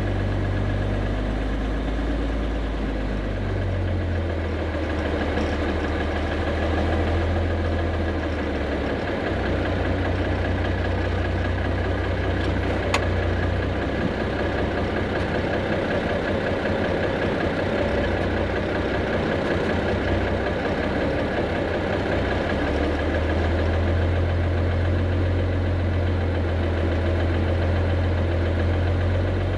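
Diesel engine of a John Deere 250G LC excavator running steadily as it works, its low engine tone shifting a few times as the load changes. A single sharp click about halfway through.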